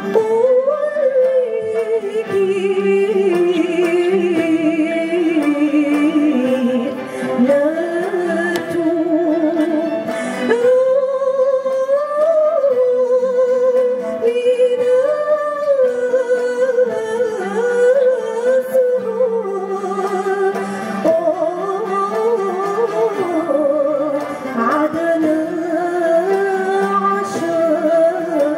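A woman singing a sustained, ornamented melody with a wavering vibrato into a microphone. She is accompanied by a string ensemble of ouds, mandolins and violins.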